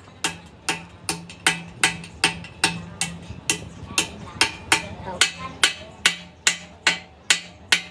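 Steady hammering on metal: about two to three sharp, ringing blows a second, evenly paced, with a low hum underneath.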